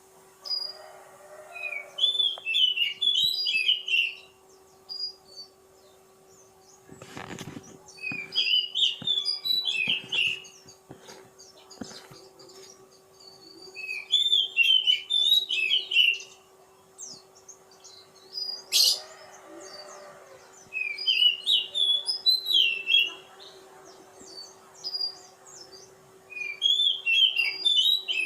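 Oriental magpie-robin (kacer poci) singing in bouts of rapid, varied chirping phrases, one every five or six seconds, over a steady low hum. A dull thump comes about seven seconds in.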